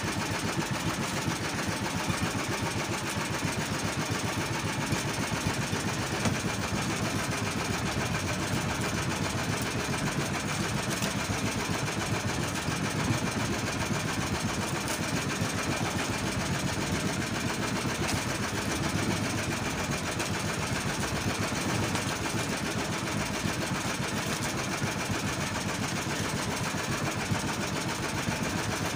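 Small single-cylinder gasoline engine of a fishing boat running steadily, close by.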